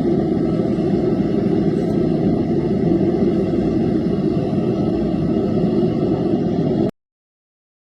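Steady, loud rumble of a running heavy machine, cutting off suddenly about seven seconds in.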